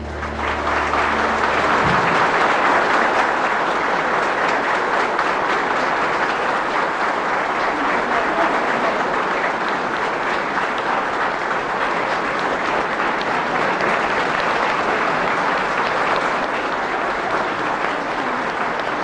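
Audience applauding, a steady dense clapping. The band's final low chord is held under the first two seconds and then cuts off.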